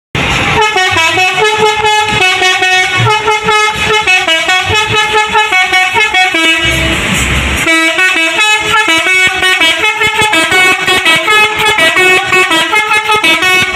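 A coach's telolet (basuri) multi-tone air horn playing a fast, repeating melody of short notes. It breaks off for about a second near the middle, where a low rumble shows through, then plays on.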